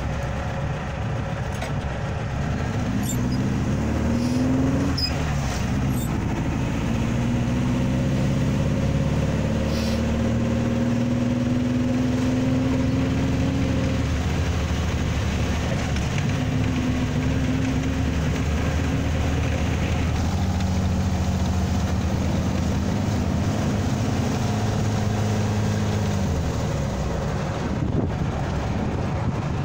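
Buggy engine pulling away and accelerating, its pitch climbing over the first few seconds and dropping at a gear change about five seconds in. It then runs steadily at speed and slows down near the end.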